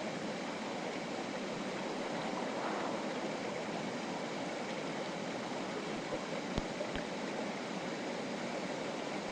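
Clear mountain river flowing over rocks, a steady, even rushing of water. Two faint knocks come about two-thirds of the way through.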